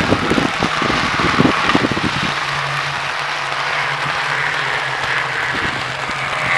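Abarth 500 race cars running down a soaked straight: a hiss of rain and tyre spray, with a steady engine drone coming in about two seconds in.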